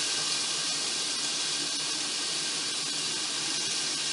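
Oiled zucchini slices sizzling in a closed electric contact grill: a steady high hiss.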